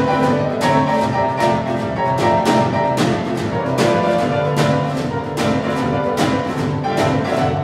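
A Petrof grand piano and a Gretsch drum kit playing blues together, with piano chords over a steady beat of about three drum and cymbal hits a second.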